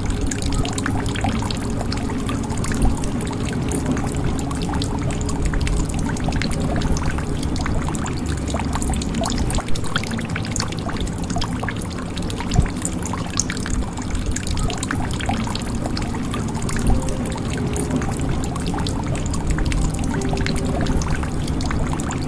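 Water trickling and dripping into a jug: a steady pouring trickle dotted with many small drop clicks, a few of them louder.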